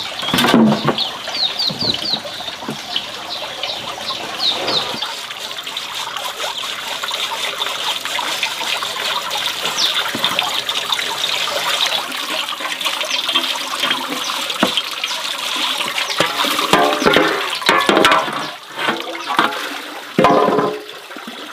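Water running steadily into a large cooking pot as it is filled.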